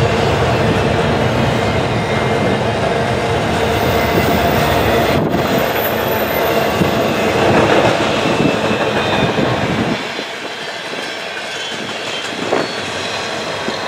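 Double-stack intermodal container cars rolling past: steel wheels running and clacking on the rails, with a steady thin squeal from the wheels. The deep rumble falls away about ten seconds in, leaving a lighter rolling sound.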